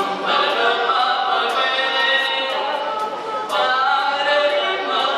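A cappella singing layered on a loop station: several sung voice parts stacked into sustained chords, over a light percussive hit about once a second.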